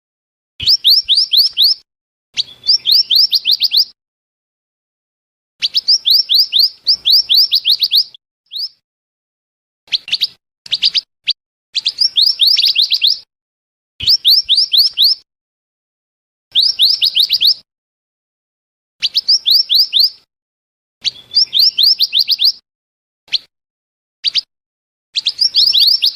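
Scarlet minivet calling: bursts of rapid, high, thin notes about a second long, several each second, repeated every couple of seconds, with a few short single notes between the bursts.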